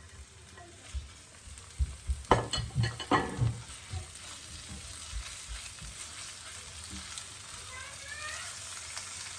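Garlic-ginger paste frying in hot oil with golden-browned onions, sizzling in the pan. A few knocks and clinks come about two seconds in, and the sizzle then grows steadily louder.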